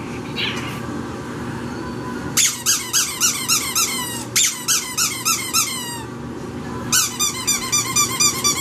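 Rubber squeaky toy squeezed over and over, about five quick squeaks a second, each falling in pitch. Two runs of squeaking, starting a couple of seconds in and again near the end after a short pause.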